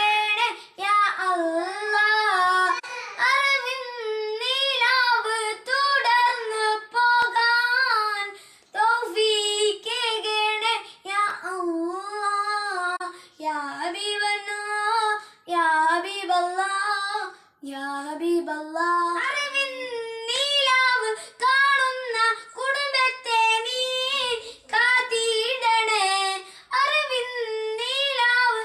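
A boy singing a Malayalam song solo and unaccompanied, his voice wavering through long ornamented phrases with short breaks for breath between them.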